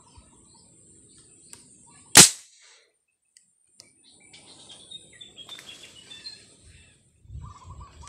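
A single sharp, loud crack about two seconds in: a shot from a marble gun. A couple of seconds later, short bird chirps.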